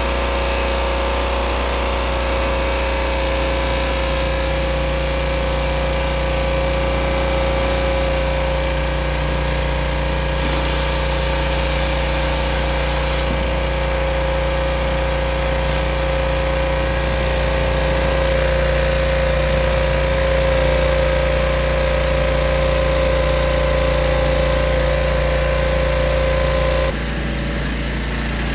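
Westinghouse WPX3400 gas pressure washer's 212cc OHV engine running steadily with a constant whine over it. A brief hiss comes in about ten seconds in, and near the end the whine cuts off abruptly and the sound drops a little.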